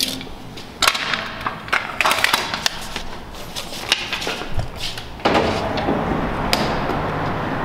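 Scattered knocks, scuffs and clicks of footsteps, a door and camera handling. About five seconds in a steady rush of background noise comes in suddenly, as the way into a parking garage opens.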